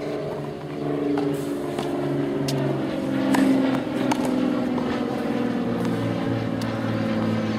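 An engine runs steadily with a low hum that shifts slightly in pitch. A few sharp knocks of a tennis ball being hit and bouncing cut through it.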